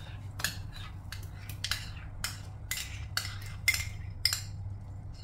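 Spoon clinking and scraping against a bowl as thick beaten curd is scooped out into a pan: about ten short, sharp clicks at uneven intervals.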